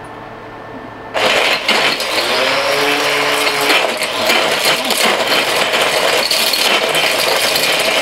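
Mighty Mill hammer-mill ore crusher, driven by a grinder motor, starts about a second in and runs loud. Its hammers clatter and rattle as they shred a metal-and-plastic electronic connector, a load the mill strains to get through.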